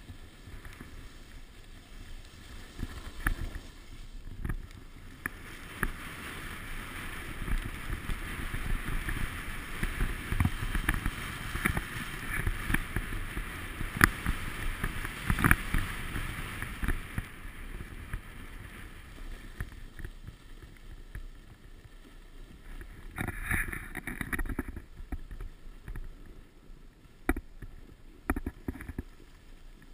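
Snow hissing and scraping under a rider sliding down a groomed ski run, loudest in the middle and easing off after, with wind rumbling on the microphone and a few sharp knocks.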